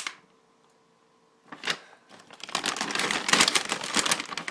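A bag of small dog treats being handled: after a short hush and a single click, a dense, rapid crinkling and rattling sets in about halfway as the treats are shaken or dug out.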